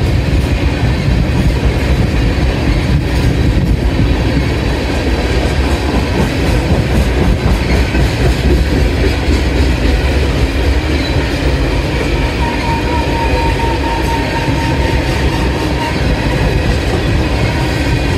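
Empty ethanol tank cars of a freight train rolling past at speed, a steady loud rumble of steel wheels clattering over the rails. A thin high squeal rises out of it for a couple of seconds past the middle.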